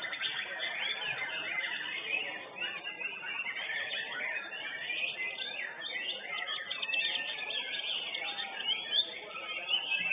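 Several white-rumped shamas (murai batu) singing at once, a dense, overlapping chorus of rapid whistles, chirps and short rising and falling phrases.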